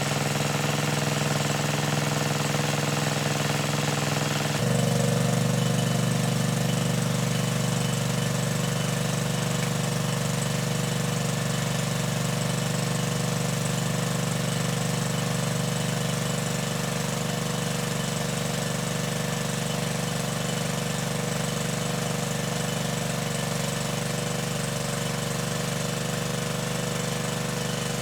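A small engine running steadily at a constant speed, its sound changing abruptly to a slightly different pitch about four and a half seconds in.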